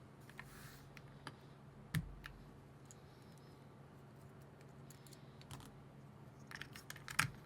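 Keys of an Akko MOD007B HE keyboard being pressed: scattered single clicks, one loud one about two seconds in, then a quick run of keystrokes near the end.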